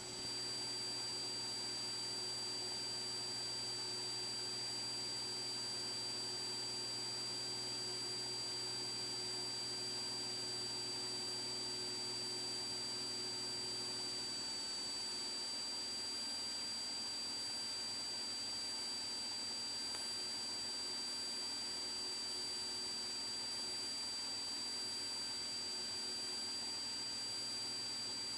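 Cockpit audio of a Cessna T206 in its climb-out after takeoff: a steady hiss with a constant high-pitched whine, the engine heard only as a faint low drone. Part of that low drone drops away about halfway through.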